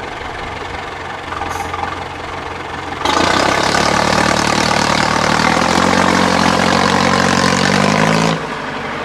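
Trial truck's diesel engine running steadily at low revs. About three seconds in, the throttle opens sharply and the engine runs loudly under load as the truck climbs a steep dirt slope, its revs climbing. Near the end the sound drops back abruptly.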